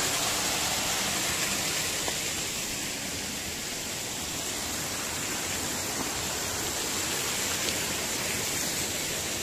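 Flowing water of a spring-fed stream, a steady rushing sound.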